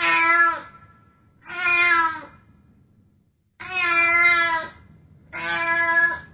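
A cat in heat yowling: four long, drawn-out calls with short pauses between them, the mating call of a cat in season.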